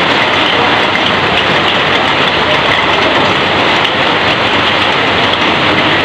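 Heavy rain falling steadily on corrugated roofing sheets and pouring off the roof edge, a dense, even hiss that does not let up.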